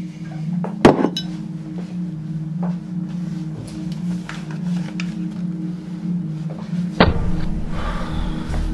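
Dark film score: a low held drone with two sharp hits, one about a second in and one near the end, the second bringing in a deep pulsing bass.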